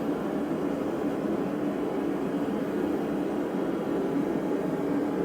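Steady, unchanging roar with a low hum from running workshop equipment, with no hammer strikes or other distinct events.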